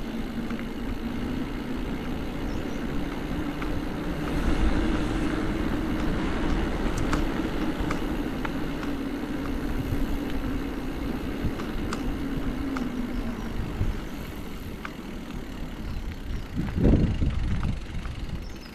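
A vehicle's motor hums while it is ridden along a street. The hum rises a little in pitch, then eases and fades out about 13 seconds in. Low wind rumble on the microphone runs throughout, with a few light clicks and a louder gust near the end.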